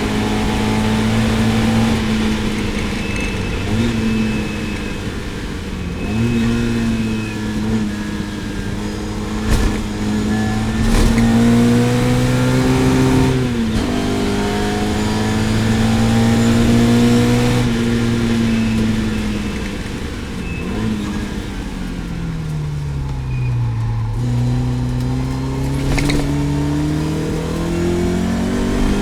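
Lotus Elan GTS race car engine at speed on track, its revs climbing and dropping again and again through gear changes and braking, with one long drop and climb near the end. A few sharp cracks stand out over the engine.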